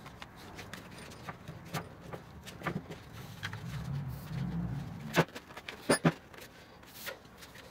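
Hand grip being pushed and worked by hand onto the tubular grab handle of a snowmobile seat backrest: rubbing and scattered light clicks and knocks, with a few sharper knocks about five and six seconds in.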